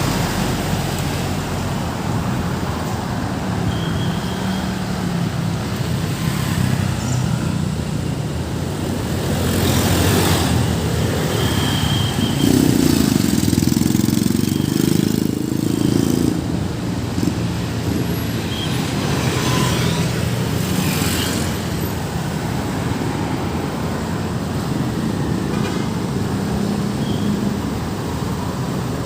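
Steady road traffic passing, with engines and tyre noise. A vehicle goes by close and louder about twelve seconds in, lasting a few seconds.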